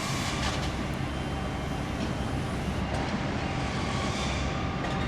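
Steady road and traffic noise from moving vehicles, an even rumble and hiss with no distinct events.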